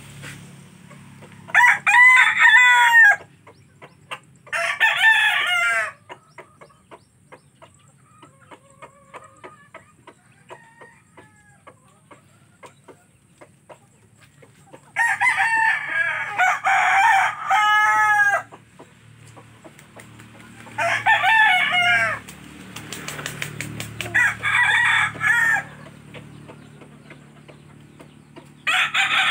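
Roosters crowing repeatedly: about six loud crows of one to three seconds each, with softer short sounds in between.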